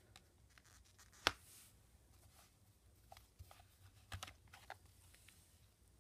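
Quiet handling noise of silver bars in plastic assay cards and their box: one sharp click about a second in, then a few softer clicks and taps.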